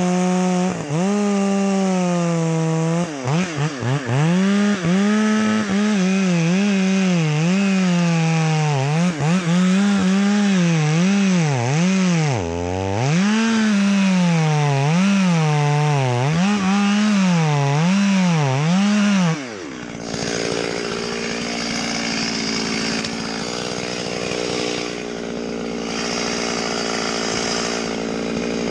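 Chainsaw at full throttle cutting wood, its engine pitch dipping and recovering again and again as the chain bites into the cut. About two-thirds through, the sound drops to a quieter, steadier running note.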